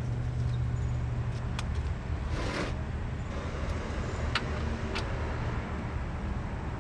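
A motor vehicle engine running steadily with a low hum, with a few sharp clicks and a brief hiss over it.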